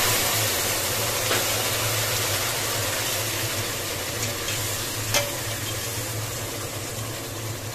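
Milk sizzling and bubbling as it hits vermicelli fried in hot ghee in a steel pot, the hiss slowly dying down. A steel ladle stirring in the pot gives a couple of sharp clinks, one about five seconds in.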